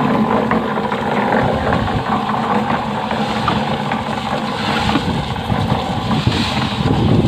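Mobile hollow-block making machine's motor running steadily.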